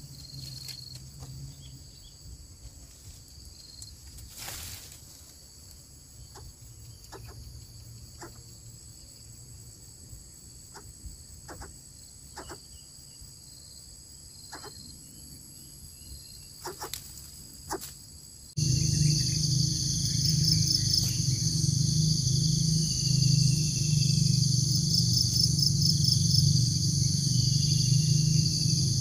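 Steady outdoor insect chorus, a continuous high-pitched chirring, with a few faint clicks. About two-thirds of the way through it cuts suddenly to a louder, pulsing insect chorus over a low hum.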